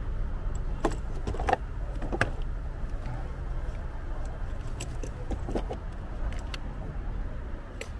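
Scattered clicks and metallic clinks of a car battery being fitted, as the plastic battery surround is handled and the metal terminal clamp is set onto the battery post. A steady low rumble runs underneath.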